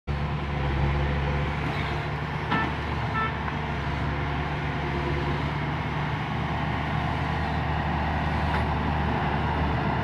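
Crawler-tracked rice combine harvester running in the field, its engine a steady low drone.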